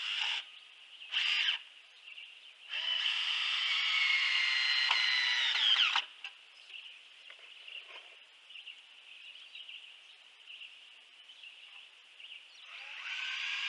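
Power drill fastening a metal shelf bracket: two short blips, then a run of about three seconds that winds down and stops. Near the end another run starts, rising as the motor spins up.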